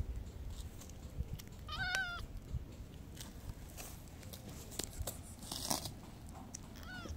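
Calico cat meowing: one short, high meow about two seconds in and another brief, falling one at the very end, with a short rustle in between.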